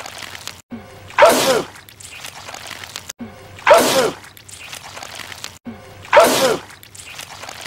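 A man sneezing the same sneeze over and over, looped: a short rising in-breath, then a loud sneeze with a falling voiced tail. It comes three times, about every two and a half seconds.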